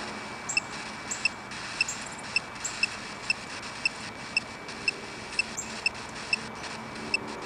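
Ghost-hunting device sounding short high-pitched beeps, evenly about twice a second, over a steady faint hiss and a faint high tone.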